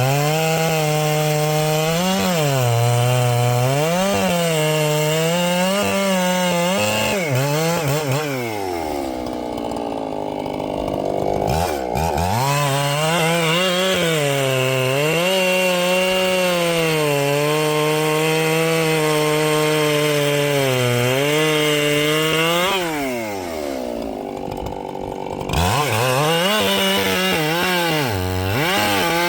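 Ported Echo CS-7310 two-stroke chainsaw with a 24-inch bar running at full throttle in a deep cut, its engine note sagging and recovering as the chain loads up in the wood. Twice the revs drop away for a few seconds, then snap sharply back up to full speed.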